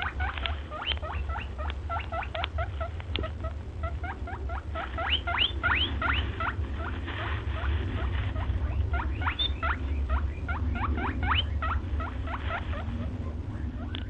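Runs of short high squeaks from small animals, each one rising quickly in pitch, several a second, over a steady low hum.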